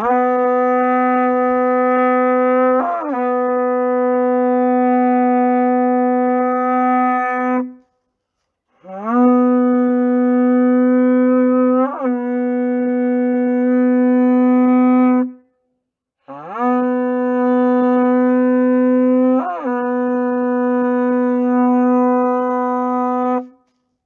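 Horagai (Japanese conch-shell trumpet) blown in three long blasts of about seven seconds each. Each one scoops up into a steady low note, with a brief upward flip in pitch partway through.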